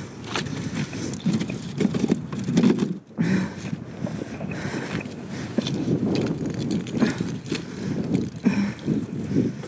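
Wind rumbling on the microphone, with scattered light knocks, clicks and scuffs as ornaments and cardboard are handled on concrete.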